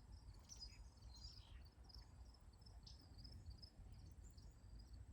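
Faint crickets chirping high and continuously over a low, steady rumble.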